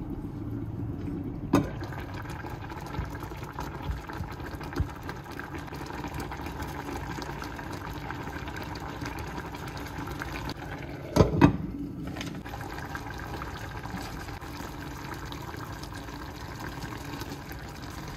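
Steady sound of running or bubbling water while cooking, with a single knock about a second and a half in and a pair of louder knocks about eleven seconds in.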